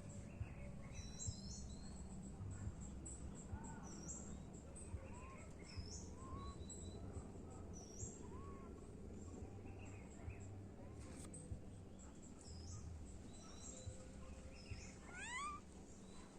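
Birds chirping: short upward-sliding calls repeated about every two seconds, with a quick run of rising notes near the end, over a steady low background rumble.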